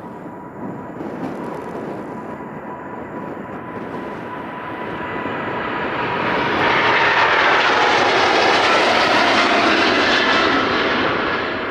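Jet airliner's engines at take-off power, growing louder to a peak about two-thirds of the way through as the aircraft passes, then starting to fade.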